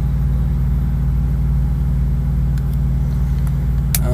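Steady low rumble of an idling diesel truck engine, with one sharp click near the end.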